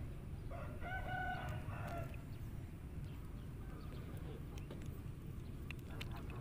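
A rooster crowing once: a single long call of about a second and a half, starting about half a second in, over a steady low rumble.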